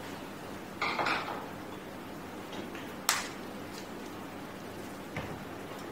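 Kitchen handling sounds over a steady background hum: a short scraping rustle about a second in, a single sharp clink about three seconds in, and a light tap near the end.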